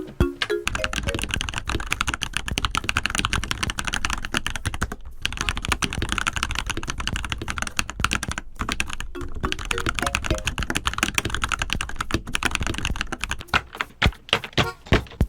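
Fast typing on an ABKO K640 mechanical keyboard fitted with Akko Cream Blue V3 Pro switches: a dense run of keystrokes with two brief pauses, slowing to separate key presses near the end.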